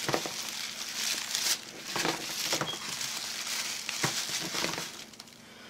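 Tissue paper rustling and crinkling as twisted pieces are pushed into a container, with a few sharper crackles along the way.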